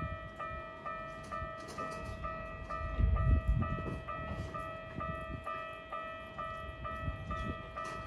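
Japanese railway level-crossing warning bell ringing its electronic clang over and over, about two strikes a second. A low rumble swells about three seconds in.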